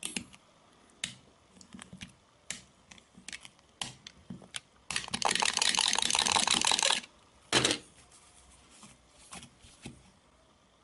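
A sharp new blade scraping hard across a Sony Ericsson Xperia phone's screen for about two seconds, about halfway in, in a scratch test. Around it are scattered light clicks and taps, with one sharper knock just after the scraping.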